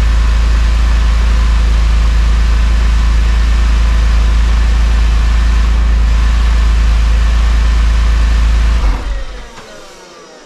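Porsche 911 (996) Carrera flat-six engine idling steadily with a deep hum, then switched off near the end, running down quickly to quiet.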